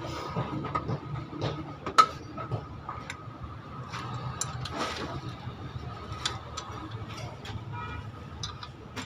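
Scattered metallic clicks and taps of hand tools and engine parts being handled, with one sharp clink about two seconds in, over a steady low hum.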